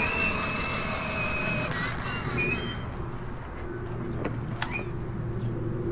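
Small electric motor of a toy vehicle running with a steady whine. About three seconds in it changes to a lower, steadier hum, with a few light clicks.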